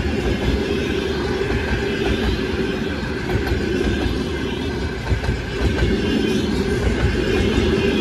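Passenger train coaches rolling past at close range, their wheels running on the rails with a steady noise.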